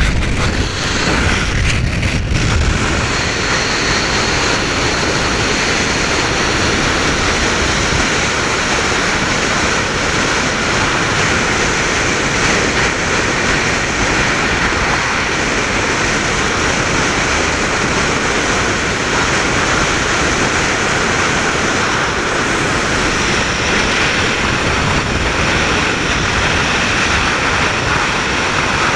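Steady rushing wind noise on the microphone of a camera mounted outside a snorkel-equipped 4x4 driving fast over flat ground, with the vehicle's running and tyre noise beneath. A few low bumps near the start as the camera is handled.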